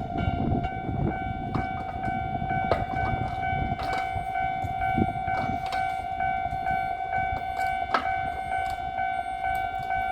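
Level-crossing warning alarm sounding a steady, evenly repeating tone, while the low rumble of the passing Kintetsu 80000 series 'Hinotori' train fades out over the first few seconds.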